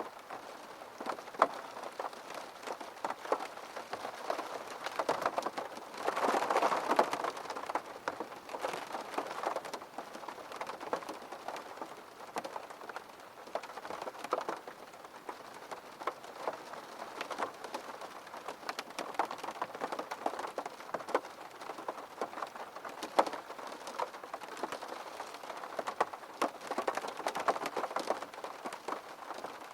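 Steady rain with many separate drops tapping on a hard surface, swelling louder for a moment about six seconds in.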